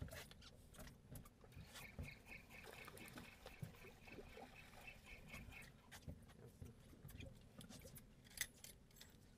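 Faint, scattered knocks and handling clicks on a small fishing boat over a low wash of water. For a few seconds a faint high-pitched pulsing tone repeats about four times a second.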